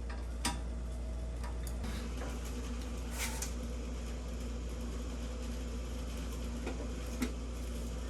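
Steady low hum with a few sharp clicks and clinks of hand tools on metal brake parts: one about half a second in, a short cluster around three seconds in, and one near the end.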